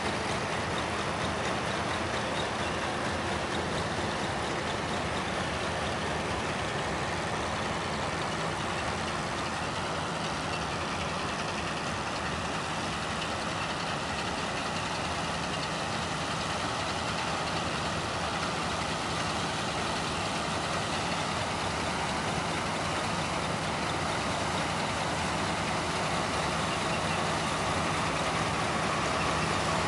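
A large farm tractor's engine running steadily while it pulls a peat harvester across a field, with a constant even machine noise.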